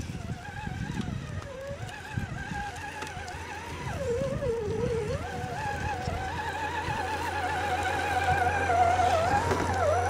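Electric motors and geartrains of radio-controlled scale crawler trucks whining, the pitch wavering up and down with the throttle, growing louder as the trucks drive up close.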